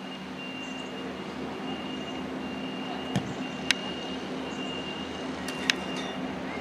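A football kicked off the turf: a sharp smack a little past halfway through, with a few lighter knocks around it, over a steady machine hum with a constant high whine.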